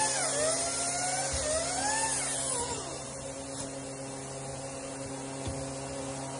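Steady hum of a running machine motor. A high wavering tone rises and falls over the first three seconds, then fades out.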